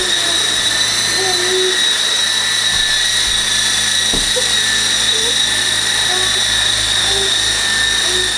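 Small electric coaxial RC helicopter hovering, its motors and twin rotors giving a loud, steady high whine. It is on a test flight after a crash and running properly again.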